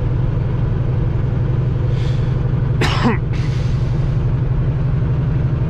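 Steady low drone of a semi truck's engine and tyres heard inside the cab while cruising on the highway. About three seconds in, a brief sound falls sharply in pitch, followed by a short hiss.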